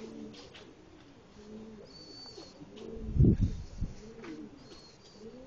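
Domestic pigeons cooing over and over at a rooftop loft. A short, loud low rumble about three seconds in is the loudest sound.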